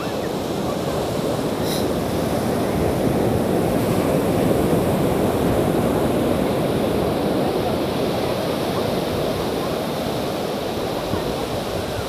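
Ocean surf breaking and washing up a sandy beach: a steady rush that swells about three seconds in and then eases.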